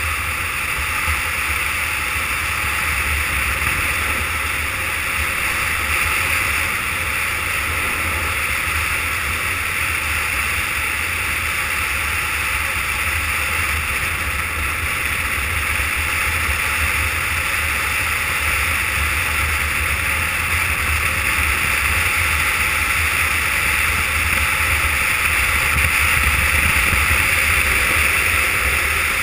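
Steady rush of wind buffeting a GoPro's microphone at downhill speed, mixed with the rolling hum of longboard wheels on asphalt, growing slightly louder near the end.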